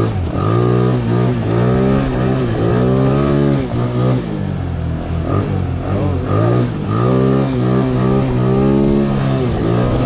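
Small scooter engine, a 50cc bored out to about 125cc with a 105 big-bore kit and a 150cc carburettor, revving up and easing off about six times as it is ridden.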